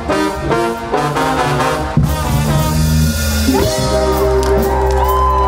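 Live band of drum kit, guitar, keyboard and trombone plays a run of quick accented hits. About three and a half seconds in it settles on a long held closing chord, and crowd cheering and clapping rise under it.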